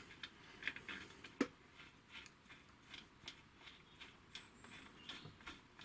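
Faint, scattered metal clicks and taps from handling a lathe's tool holder and its screws while fitting it to the machine, with one sharper knock about a second and a half in.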